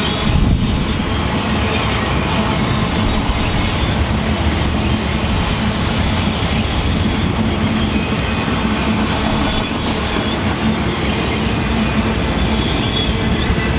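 Freight train rolling past at close range: a steady loud rumble and rattle of wheels and cars on the rails, with a faint high wheel squeal about eight seconds in.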